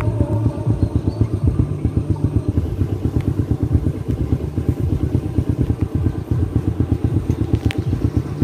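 Small motorbike engine running steadily at an even, low cruising speed, heard up close from on board the bike, with one brief click near the end.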